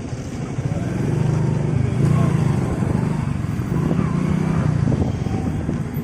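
Hero motorcycle engine running under way, a pulsing low rumble that swells louder about a second in and again around four seconds.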